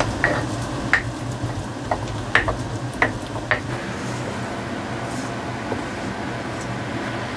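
Stone pestle mashing chili sambal in a stone mortar (Indonesian cobek and ulekan), with about seven sharp knocks of stone on stone in the first few seconds. After that only a faint steady low hum continues.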